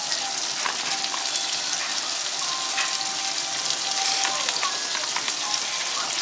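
Onions sautéing in a hot pan: a steady sizzle with many small crackles.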